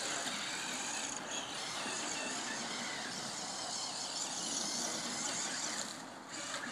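Electric radio-controlled truck (Duratrax Evader) running across the grass, its motor and gears giving a steady high whine. The whine drops off briefly about a second in and again near the end as the throttle eases.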